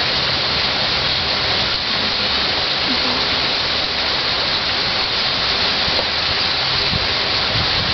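Steady, even rushing hiss with no breaks, strongest in the upper range.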